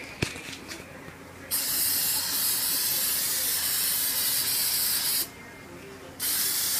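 Aerosol can of clear lacquer spraying in two bursts: a steady hiss lasting about three and a half seconds that starts about one and a half seconds in, and a second one starting about a second after it stops. A single sharp click comes just before the first burst.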